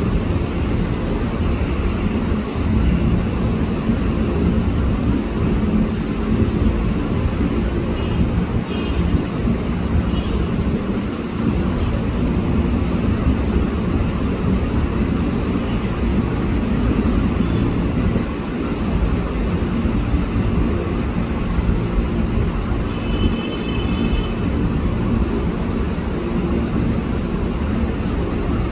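Steady low rumble of a diesel locomotive's engine running, with brief faint high tones twice, about eight and twenty-three seconds in.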